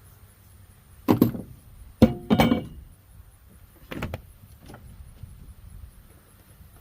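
A handful of sharp knocks and clanks: one about a second in, two close together a second later, the second ringing briefly like metal, then a softer knock and a faint tap.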